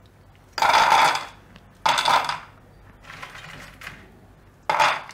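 Handfuls of crisp fried shakkarpara (sweet fried dough squares) clattering as they are scooped from a steel tray and dropped onto a plate, four times, the third fainter.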